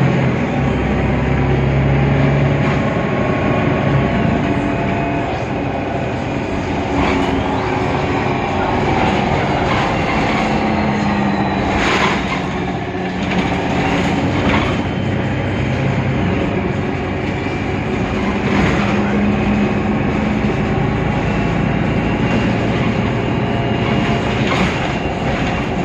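Mercedes-Benz Citaro O530 Ü city bus under way: its OM 906 hLA diesel and Voith DIWA gearbox give a steady drone whose pitch shifts now and then. Sharp knocks or rattles come about seven times over the stretch, the loudest near the middle.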